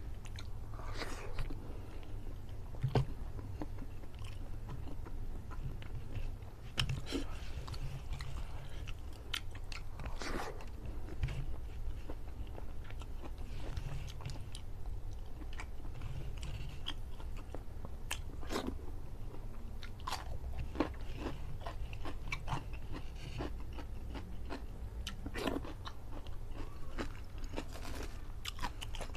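Close-miked chewing: a man eating rice and curry chicken by hand, with scattered short mouth clicks over a steady low hum.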